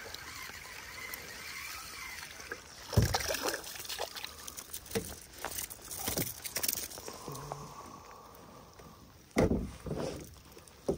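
Hooked speckled trout splashing and thrashing at the water's surface beside a kayak as it is reeled in, starting suddenly about three seconds in. Two loud thumps come near the end.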